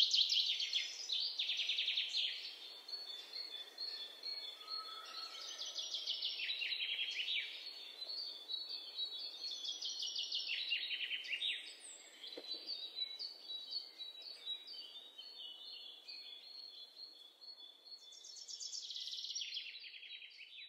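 Birds singing: a continuous run of fast, high-pitched chirping trills, many phrases falling in pitch, with a louder stretch near the end.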